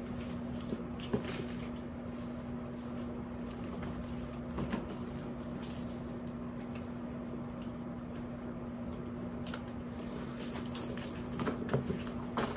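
Light clicks and clinks of a handbag's gold-tone metal strap hardware being handled and clipped on: a few scattered, then a cluster near the end. Under them runs a steady low hum.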